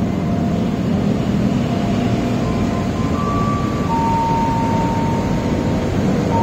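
Steady vehicle rumble, with a few faint held tones above it that change pitch every second or two.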